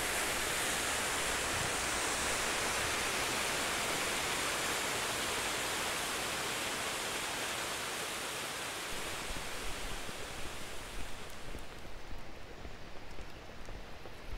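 Waterfall plunging into a rock pool, a steady full rush of falling water. About eleven seconds in the rush gives way to a quieter, uneven outdoor background.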